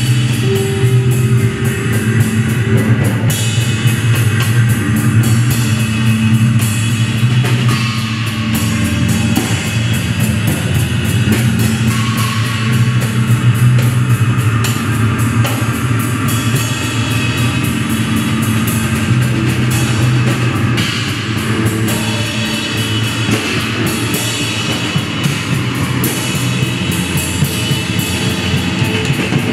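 Live improvised rock-leaning jam by an electric bass, electric guitar through a combo amp and drum kit, playing loud and without a break. Held low bass notes sit under the guitar while the drummer keeps up a dense wash of cymbal and drum hits.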